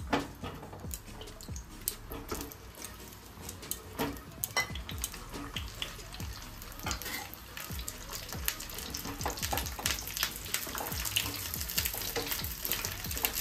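Peeled pointed gourds (potol) sizzling and crackling in hot oil in a nonstick wok as they are laid in one by one, the frying growing louder as the pan fills. Near the end a spatula moves them in the pan.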